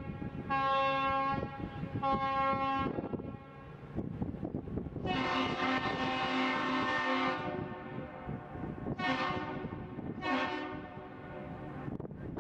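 The Vista Star tour boat's horn finishes its one-long-two-short salute with two short blasts, then the Aerial Lift Bridge's horn answers with one long blast and two short ones. Wind noise on the microphone runs underneath.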